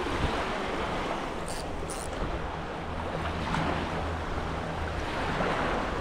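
Wind buffeting the microphone over a steady wash of water at the shore, with a faint low hum underneath in the middle.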